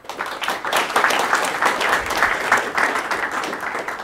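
Audience applauding: many hands clapping in a dense run that fades out near the end.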